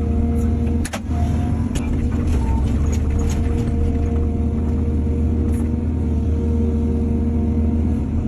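Heavy diesel engine of an excavator running steadily, with a few sharp clanks, the loudest about a second in.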